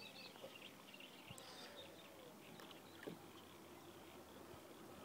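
Near silence: faint outdoor ambience with scattered distant bird chirps and a couple of tiny clicks.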